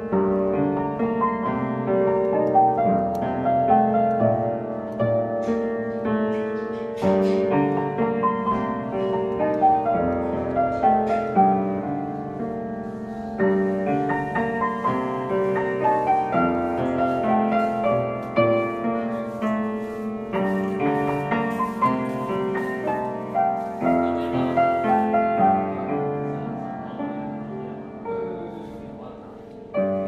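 Piano played live: a flowing melody over broken-chord accompaniment. It grows softer near the end, then a strong new chord is struck.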